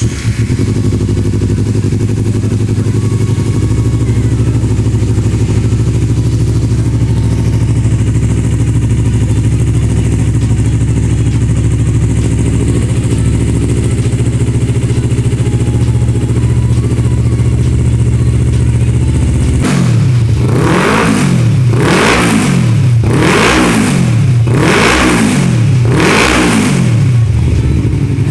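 Kawasaki Ninja 250 FI parallel-twin engine idling steadily, then revved in a series of about five throttle blips, each rising and falling, over the last eight seconds or so.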